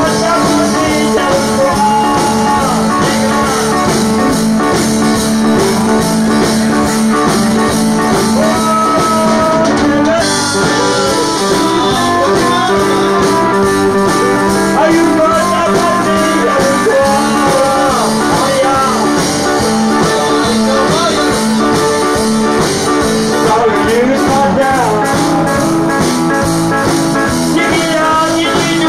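Live Cajun band music: a Cajun button accordion playing held chords and melody over guitar, with a man singing into the microphone.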